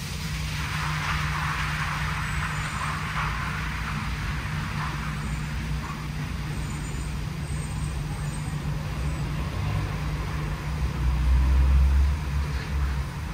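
WashTec SoftCare² Takt gantry car wash at work: a steady low mechanical hum, with a hiss over it for the first few seconds and a louder low rumble about eleven seconds in.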